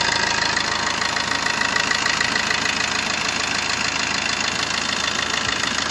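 Maruti Suzuki Ertiga diesel engine idling steadily after an overhaul, with a fine, even clatter; the mechanic says it runs with no knocking.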